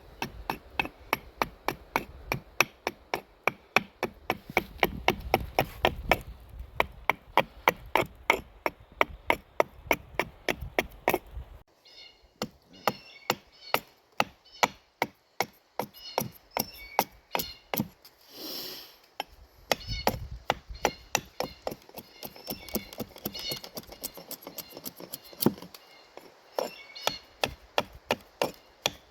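Gränsfors Bruks Carpenter's Axe chopping into wood while roughing out a spoon blank: quick, sharp strikes at about three a second, with a couple of brief pauses.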